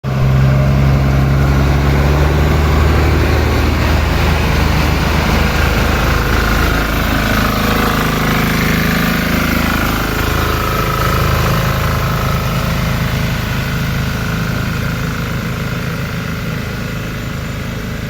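An engine running steadily with a low hum, loudest at first and slowly easing off.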